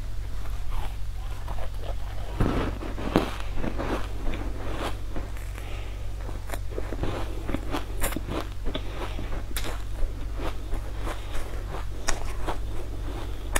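Close-up biting and chewing of a crunchy, powder-coated sweet cake cube: a run of crisp crunches, thickest a couple of seconds in, then sparser chewing clicks, over a steady low hum.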